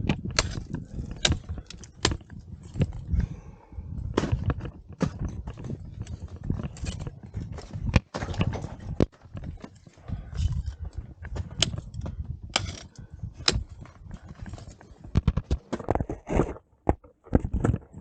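Ice axes and crampons striking and kicking into waterfall ice during a climb: a long run of irregular sharp knocks and clicks over a low rumble.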